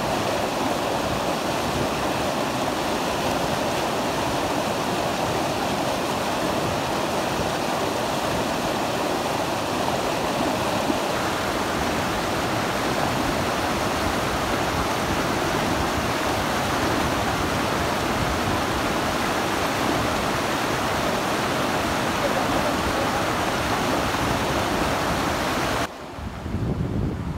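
Steady rushing of a fast, rocky mountain stream. Near the end it cuts abruptly to a quieter, lower rush.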